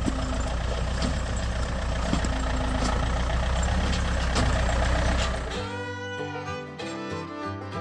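Tractor engine running steadily, with a low drone and scattered knocks and clicks. About five and a half seconds in, it cuts off and fiddle and guitar music takes over.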